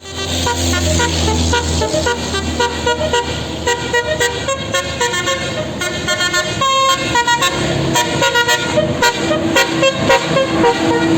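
Bus 'telolet basuri' musical horn playing a quick tune of short, varied horn notes, with a few longer held notes, over a low engine rumble.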